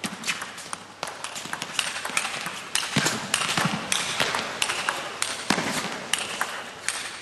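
Table tennis rally: the celluloid ball clicking off the rackets and the table in quick alternation, several hits a second.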